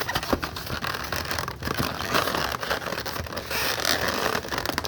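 Close, loud rustling and scraping with scattered crackles and clicks, like something being handled or rubbed right by the microphone.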